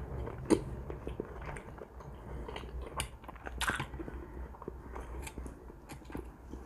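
A person chewing a mouthful of roast pork, with irregular small wet clicks and smacks of the mouth; the sharpest come about half a second in and again past the middle.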